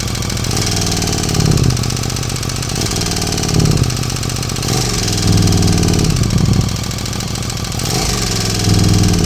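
KTM 1290 Super Duke R's V-twin engine idling with a rattle, blipped up in revs about four times. The rattle is the fault being shown.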